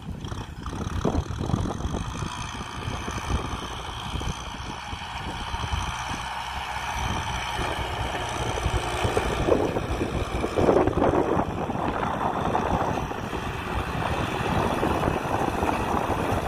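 Kubota M6040 tractor's four-cylinder diesel engine running steadily under load while pulling a disc plough through dry soil, growing louder as the tractor comes close.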